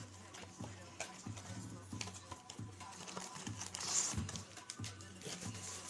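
Faint handling noises of trading cards and pack wrappers: light clicks and rustles, with a brief crinkle about four seconds in, over a low steady hum.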